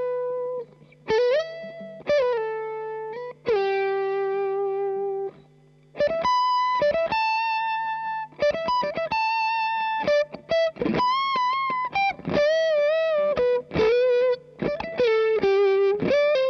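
Clean electric guitar lead from a 1983 Tokai Strat copy on the neck-and-middle pickup position, played through a Kool Amplification Blue Sky 35-watt 6L6 tube combo. Single-note phrases with string bends and wide vibrato, the notes ringing out between short pauses, over a faint steady amp hum.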